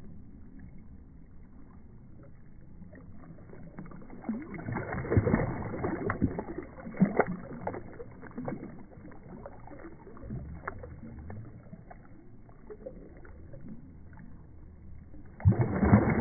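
Shallow sea water splashing and sloshing around a body moving in it, louder between about five and eight seconds in and again near the end.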